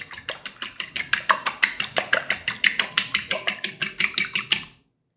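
Fork beating raw eggs in a glass mixing bowl: quick, even clinks of the fork against the glass, about six a second, stopping shortly before the end.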